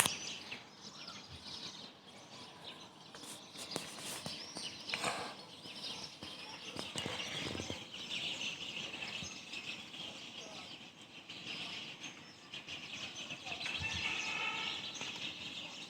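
Birds chirping over a steady background hiss, with short calls scattered throughout.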